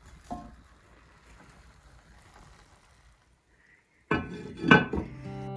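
Enameled cast iron Dutch oven being loaded: a light clink as broccoli goes into the pot, then a loud clatter and clank as its heavy lid is set down on it. Acoustic guitar music starts just after.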